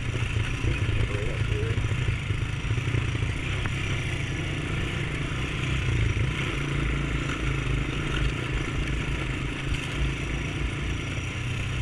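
Honda ATV engine running steadily under way on a trail ride: a low, even engine rumble with a constant rush of noise over it.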